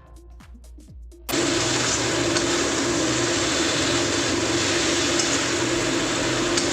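Background music for about a second, then an abrupt cut to a loud, steady sizzle of a taro-stolon and shrimp curry frying in a pan, with a steady low hum under it.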